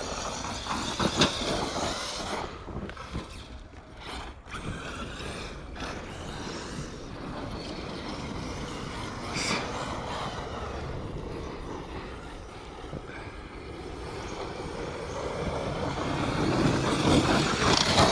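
Electric RC off-road cars running on dirt: the brushless motors whine, rising and falling with the throttle, over tyre and gravel noise. It grows louder near the end.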